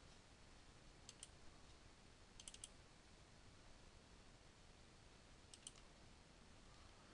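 Faint computer mouse clicks in near silence: a pair about a second in, a quick run of three around two and a half seconds, and another pair later on.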